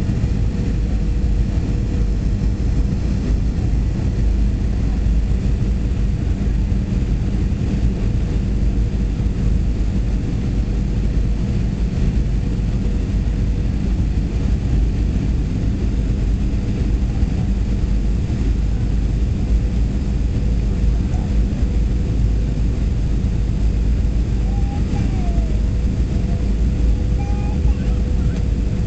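Steady cabin noise inside a Boeing 737-300 on approach to landing: a low rumble from its CFM56-3 turbofan engines and the air rushing past the fuselage, with a thin steady tone above it.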